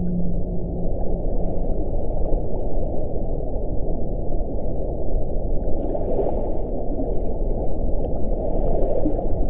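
Underwater recording of a whale: a low, steady moan fades out about a second in, over constant low underwater rumble. Two brief rushing swells come around six and nine seconds in.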